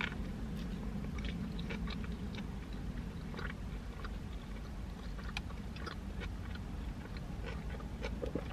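A person chewing a big mouthful of burger close to the microphone: soft, irregular wet clicks and smacks over a low steady hum.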